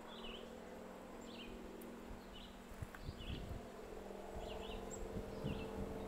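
A small songbird repeating a short chirp about once a second, over a steady low buzzing hum, with a few low thumps in the second half.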